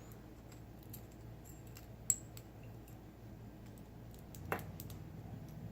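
Light metallic clicks and ticks of a padlock's small parts being handled while the lock is taken apart, with a sharper click about two seconds in and another near four and a half seconds.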